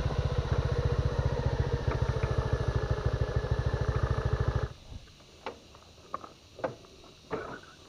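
Motorcycle engine running steadily with a rapid, even pulse, switched off about four and a half seconds in. After that it is much quieter, with a few faint, short sounds.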